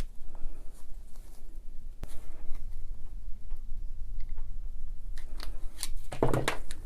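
Small clicks and scrapes of a hand tool working against metal parts while a rubber O-ring is pried off a rotary hammer's internals. There is a sharp click about two seconds in and a louder cluster of handling sounds near the end.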